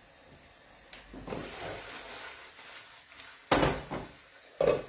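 Pans knocked against a gas stove's grate: a soft shuffling of cookware, then two sharp knocks about a second apart near the end.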